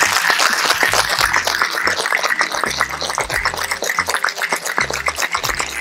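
Ice rattling inside a metal tin-on-tin cocktail shaker, shaken hard in a fast, steady rhythm, stopping abruptly at the end.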